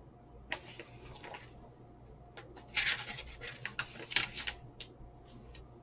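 Paper pages of a booklet being turned and handled: rustles about half a second in, the loudest near three seconds, another around four seconds, with small paper clicks between.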